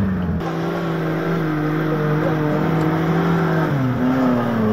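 Suzuki Jimny 4x4 engine running at steady revs while climbing a dirt track, the revs easing off near the end.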